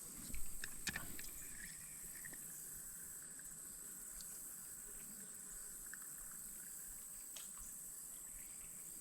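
Steady, high-pitched drone of insects in the creekside woods, with a few light clicks and knocks in the first second or so.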